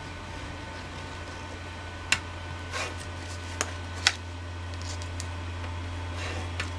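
Cardstock being folded and the crease pressed down with a bone folder: a few sharp taps and short scraping rustles of tool on paper, over a steady low hum.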